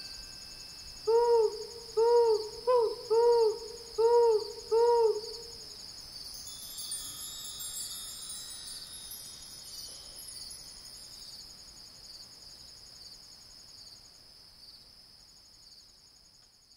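An owl hooting six times in a quick run of about four seconds. Each hoot rises and falls in pitch, and the third is short. Under the hoots runs a steady, high, pulsing chirring of night insects, and it fades away near the end.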